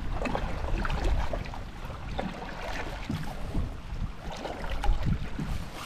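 Wind buffeting the microphone out on the water, a low uneven rumble around a small fishing boat.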